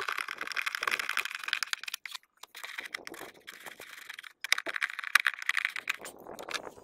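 A hand screwdriver driving screws into the plastic inner wheel-arch lining of a Skoda Fabia: three runs of rapid ticking and rasping, with short breaks between them.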